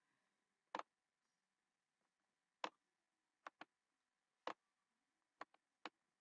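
About eight sharp computer mouse clicks, spaced irregularly, some in quick pairs, with near silence between them.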